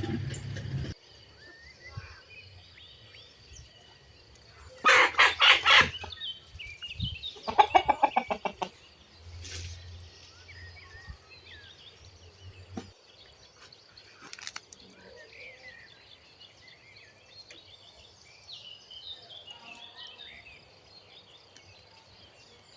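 Chickens calling: two loud bouts, the first about five seconds in and the second, a rapid run of clucks, about a second and a half later. Faint bird chirps follow.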